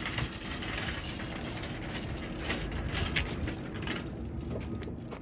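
Metal shopping cart being pushed over rough pavement, its wheels rolling and the wire basket rattling, with a few sharper clatters a little past halfway. Wind buffets the microphone underneath.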